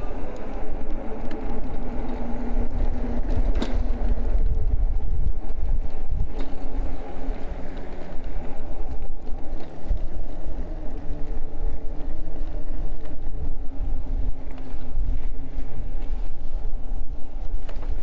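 Ride noise from an e-bike under way: a steady low rumble of wind on the microphone mixed with tyre noise, and a faint hum that shifts in pitch. There is a single short knock about three and a half seconds in.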